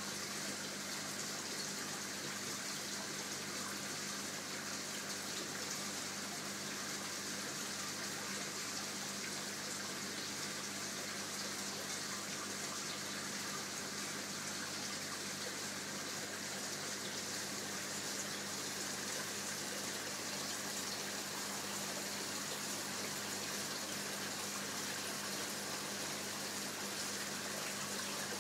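Steady rush of water flowing through an aquarium's plumbing, with a constant low hum underneath.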